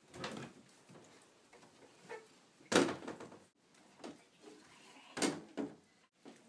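Closet doors being opened and shut: a few knocks and thuds, the loudest about three seconds in, with quieter scraping and handling noises between.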